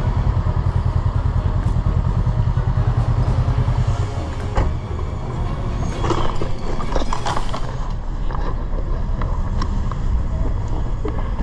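Honda motorcycle engine idling with an even low pulse. About four and a half seconds in there is a sharp knock, then a second or two of clatter and scraping, as the bike tips over onto its side.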